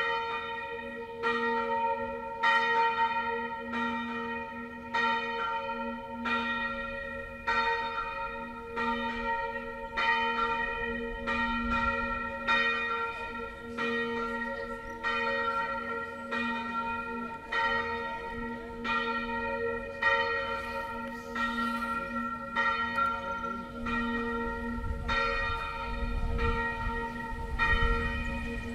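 A single B-flat church bell, cast by Achille Mazzola in 1928 and weighing 276 kg, swung in the Tyrolean style. It strikes about once every 1.2 seconds, each stroke ringing on into the next.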